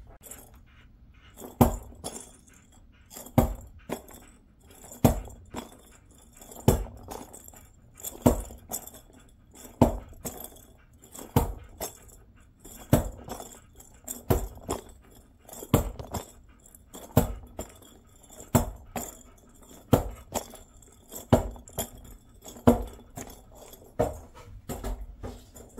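A small toy ball bounced again and again on a hard floor, a sharp tap about every one and a half seconds with a light jingling ring, the bounces slowly coming closer together.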